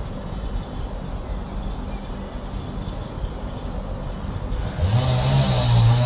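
Low rumbling noise with no clear pitch. About five seconds in, music with a loud sustained low drone and wavering higher tones starts.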